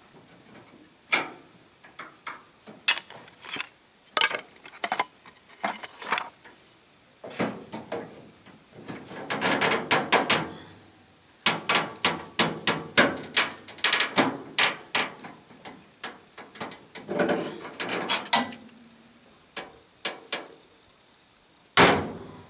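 Sheet-metal grille and trim of a 1966 Chevrolet Biscayne being pried and bent in place with a wooden stick and pliers: irregular metallic clicks, taps and knocks, thickening into a quick run of clicks in the middle. One loud knock comes near the end.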